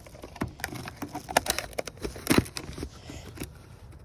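Scattered clicks, taps and knocks of a small plastic remote-control boat being handled, the loudest knock a little past the middle.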